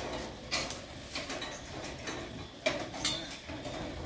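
A few sharp metallic clinks and knocks, irregularly spaced, from a tree climber's harness hardware and ladder as he shifts and climbs.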